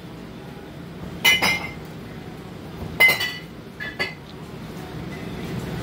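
Glasses and dishes clinking: two sharp clinks about a second and three seconds in, then two lighter ones soon after, over a low steady background hum.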